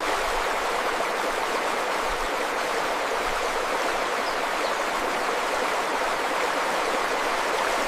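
Steady rushing water, like a stream, an even unbroken hiss that starts suddenly and holds level.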